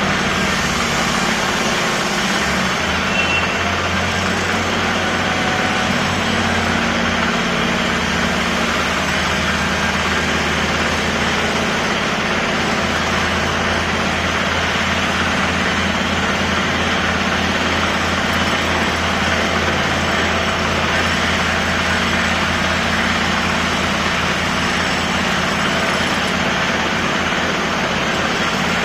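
A construction machine's engine running steadily: an even low hum under a constant noisy din, with no let-up.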